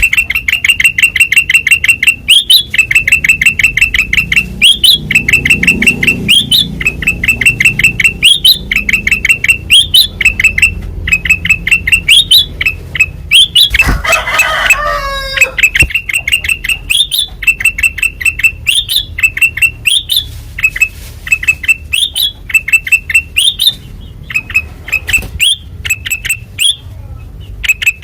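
Kutilang emas bulbul singing loudly and nonstop: quick trills of one high note, each ending in a short upward flourish, about one phrase a second. About halfway through, a different burst of calls with falling glides breaks in for a second or two.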